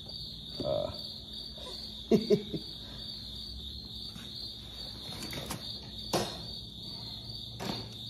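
Crickets chirping in a steady, high-pitched drone, with a few short, louder sounds over it, the loudest a pair about two seconds in.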